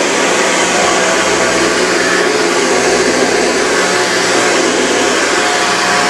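Vintage Hoover upright vacuum cleaner running steadily as it is pushed over carpet, its motor and fan giving a constant whirring drone.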